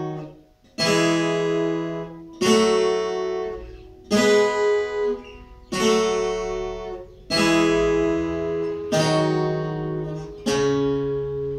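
Viola caipira, the Brazilian ten-string guitar with its strings in five pairs, played slowly. Seven plucked two-note chords about a second and a half apart, each left to ring out.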